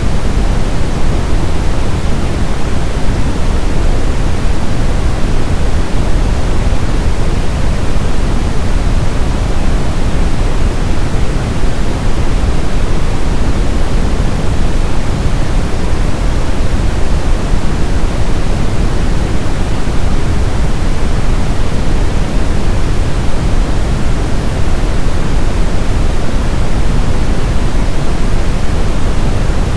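Brown noise: a steady, loud, even hiss-rumble weighted toward the low end, with no change or events.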